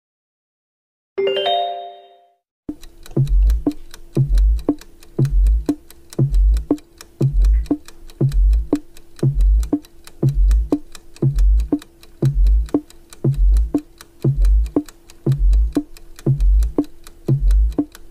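A short pitched chime, then a countdown-timer music loop: a heavy low drum beat about once a second under fast, steady ticking clicks and a held low note.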